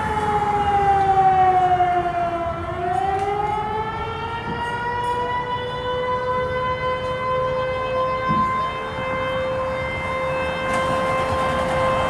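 Fire station siren sounding a long, steady wail: its pitch sags lower over the first few seconds, then climbs back up and holds. It is calling the fire company out to an alarm.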